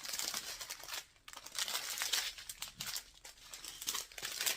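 Small plastic bags of diamond-painting drills crinkling as they are handled, in uneven bursts with a brief lull about a second in.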